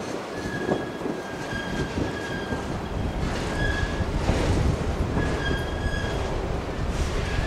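Freight cars rolling slowly past, a steady low rumble of wheels on rail with a high-pitched wheel squeal that comes and goes several times.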